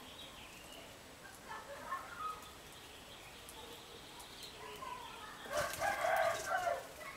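A rooster crows once near the end, a call of a little over a second. Before it come a few fainter bird calls.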